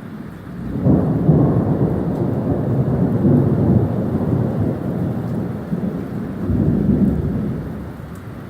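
Thunder rumbling over steady rain: the rumble rises sharply about a second in, rolls on with swells for several seconds and eases near the end.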